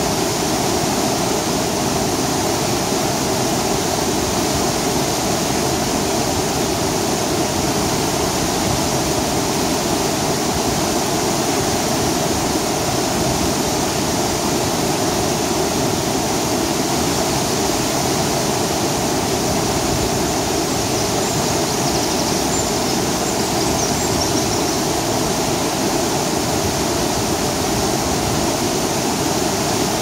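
Small waterfall pouring into a shallow pool: a steady, unbroken rush of falling water.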